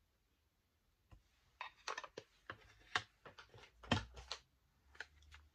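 A scattered series of light clicks and taps as small painting supplies are handled on a craft table, starting about a second in.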